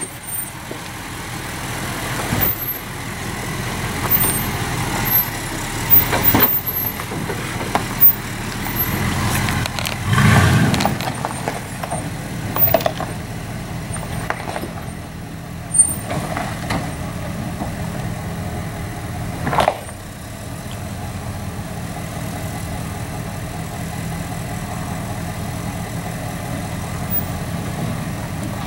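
2004 Dodge Ram 2500's Hemi V8 running at low speed as the truck crawls over a rocky trail, with a louder surge about ten seconds in. Several sharp knocks break through as the tyres and underside meet the rocks.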